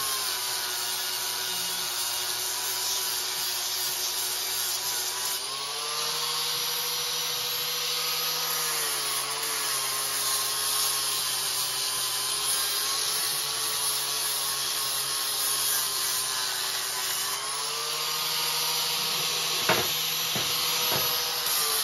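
Angle grinder running continuously against the steel frame of a bar grille. Its motor note rises twice when it is eased off the work and drops back under load. Two sharp knocks come near the end.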